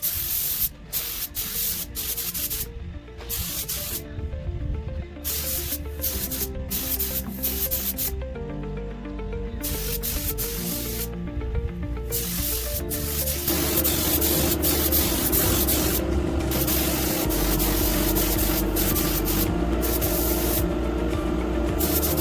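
Background music with a melody of short notes over intermittent hissing, which becomes continuous about 13 seconds in.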